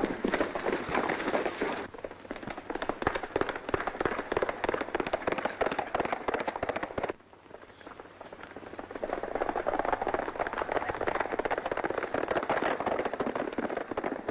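Film soundtrack of a horseback action scene: a dense, rapid clatter of galloping hooves and sharp gunshot-like cracks. It drops off abruptly about 7 seconds in, then builds back up.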